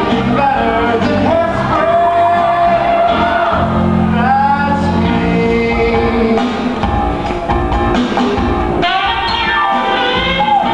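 Mixed choir of male and female voices singing an upbeat pop show tune with instrumental accompaniment, with some long held notes, in a large hall.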